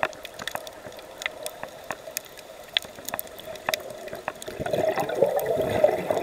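Underwater gurgling of a scuba diver's exhaled regulator bubbles over scattered sharp crackling clicks. The bubbling grows louder for the last second and a half.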